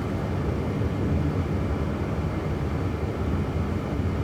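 Steady road and tyre noise inside the cabin of a Jaguar I-Pace electric car cruising at city speed, an even low rumble with no engine note.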